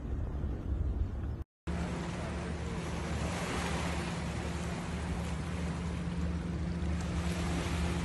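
Small lake waves lapping on a pebbly shore, an even wash of water with a steady low hum beneath it. Near the start, wind rumbling on the microphone breaks off at a brief dropout.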